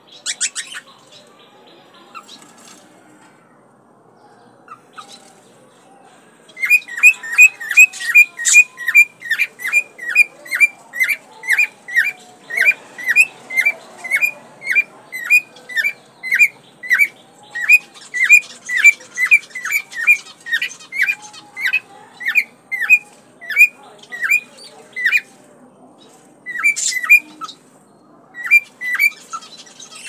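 Male cockatiel giving its breeding call: a long, even run of short, sharp, upward-flicking chirps, about two to three a second, starting several seconds in, breaking off after about twenty seconds, then a few more calls near the end.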